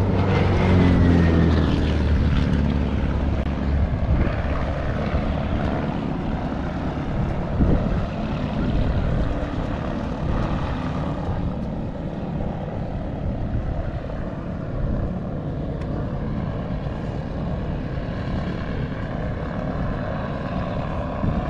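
Light aircraft's piston engine and propeller running nearby, its pitch falling over the first few seconds as it passes, then settling into a steady drone.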